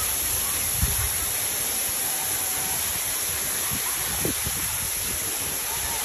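Outdoor water park ambience: a steady rushing hiss of flowing water, with wind rumbling on the microphone and a soft thump about a second in.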